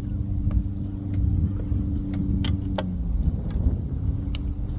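Boat motor running with a steady low rumble and hum, with a few faint clicks over it.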